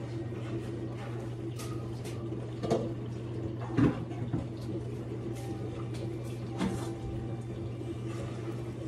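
Kitchen handling sounds: a few short knocks of things being moved or set down, about three and four seconds in and again near seven seconds, over a steady low hum.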